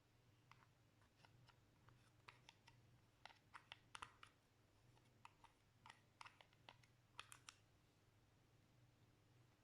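Slime being pressed and worked by hand, giving faint, irregular sticky clicks and small pops, bunched in two runs.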